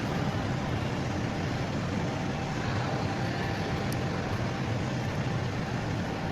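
Steady low engine rumble with a faint constant whine, unchanging in pitch and level.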